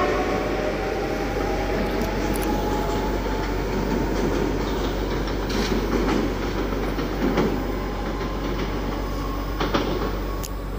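SNCF TER double-deck electric multiple unit running away along the platform and into a tunnel: a steady rumble with light clacking of the wheels.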